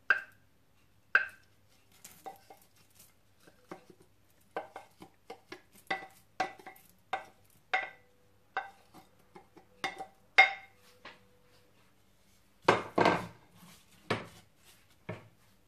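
Wooden spatula knocking and scraping against a glass bowl and a nonstick frying pan as chopped dried chillies and garlic are pushed into the pan: a run of light knocks about one or two a second, some with a brief ring, and a few heavier knocks near the end. The pan is still cold, so nothing sizzles.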